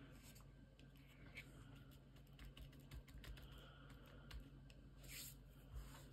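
Faint handling noise from hands pressing a glued piece of lace onto a paper journal page: scattered soft taps and clicks, with a brief paper rustle about five seconds in.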